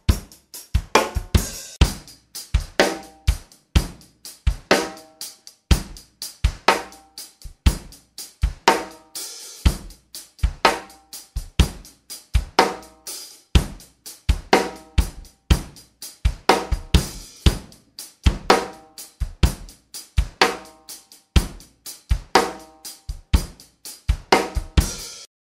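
Background music: a steady drum-kit beat with hi-hat, snare and cymbals, and short pitched phrases every couple of seconds. It cuts off suddenly just before the end.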